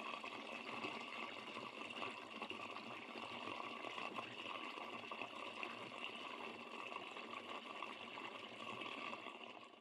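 Gasoline pouring steadily from a spout into a small engine's fuel tank through the filler neck, faint, stopping just before the end.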